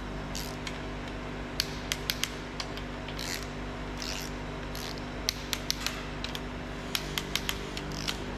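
Torque wrench ratcheting on the timing cover bolts as they are tightened to 30 Nm: sharp metal clicks, several in quick runs, over a steady low hum.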